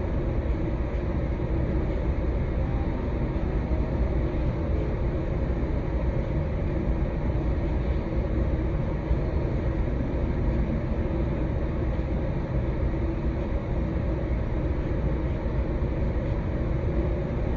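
Steady, deep white noise, an even rumbling hiss weighted toward the low end, with no changes or separate events.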